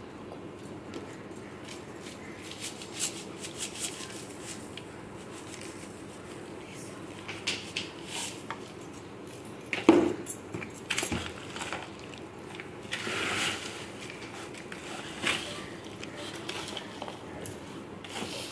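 Scattered clinks and scrapes of a metal spoon against a plastic bowl as bread crumbs are added and stirred into marinated chicken pieces, with one louder knock about ten seconds in. A steady low hum runs underneath.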